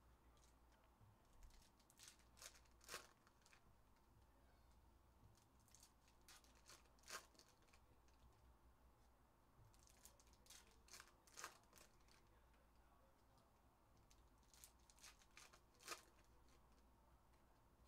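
Faint tearing and crinkling of foil trading-card pack wrappers and the light clicks of cards being handled, coming in short scattered bursts of several at a time.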